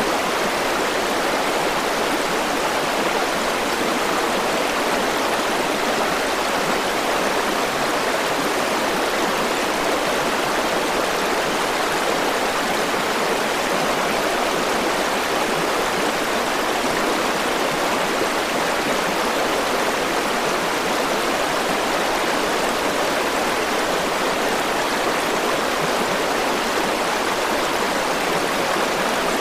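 River water rushing steadily over rocks, a continuous even rush with no breaks.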